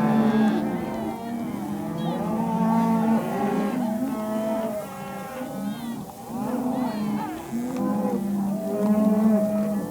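A herd of cattle mooing and bawling, many calls overlapping with no break, as the herd is driven along.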